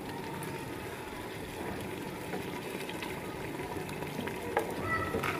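Cooking oil poured into an open pressure cooker of cooked beef liver gravy, which bubbles steadily on the heat. A brief knock about four and a half seconds in.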